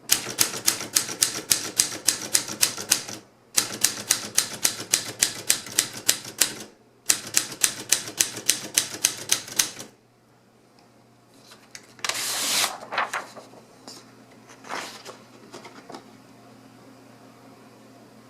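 Alpina SK24 typewriter being typed on in three quick runs of keystrokes, about five strikes a second, with short pauses between the runs. The typing stops about ten seconds in. Then comes one brief, loud scraping noise, followed by a few scattered clicks.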